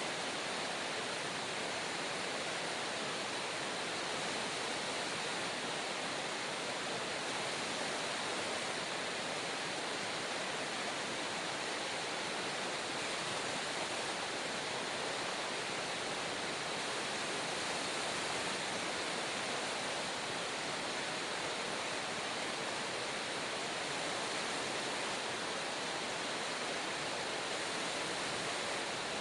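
Steady rush of a nearby river or stream, an even, unbroken water noise.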